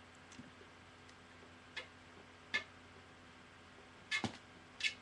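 A few short, sharp clicks and taps spaced unevenly over a quiet room background: small handling noises, about four in all, with two close together near the end.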